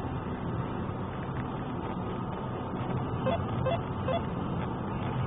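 Steady engine and tyre noise heard from inside a moving car's cabin. Three short faint beeps come a little past the middle.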